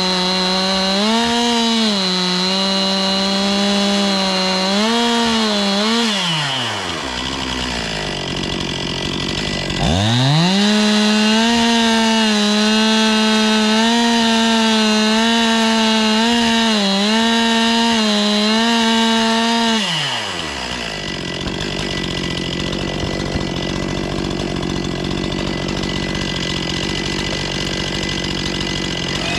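Two-stroke chainsaw cutting wood at full throttle, its pitch wavering under load. It drops to idle about six seconds in, revs back up for another ten-second cut, then settles to idle.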